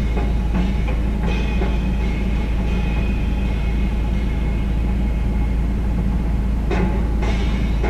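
Steady low rumble inside a car's cabin, with music playing under it.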